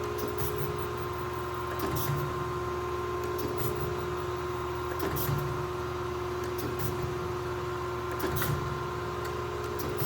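Kent KGS-63AHD hydraulic surface grinder running, its motor and 2 HP hydraulic pump humming steadily, with a short knock about every second and a half as the hydraulic table reverses at each end of its stroke.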